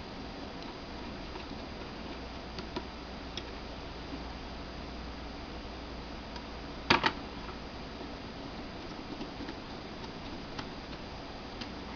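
Small screws being turned into a laptop hard drive caddy with a small Phillips screwdriver: scattered faint ticks of metal on metal, and a sharp double click about seven seconds in.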